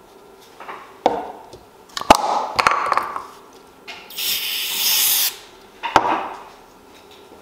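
Sharp knocks of objects being set down on a wooden workbench, then a steady aerosol spray hissing for about a second, then another knock.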